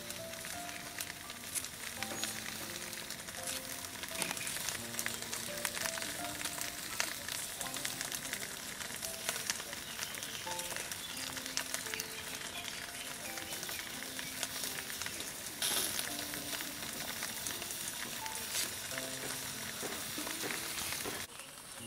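Background instrumental music with a simple stepping melody, over a steady hiss dotted with many small clicks.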